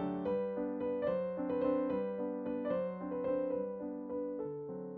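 Background piano music: a slow melody of struck notes over lower held chords.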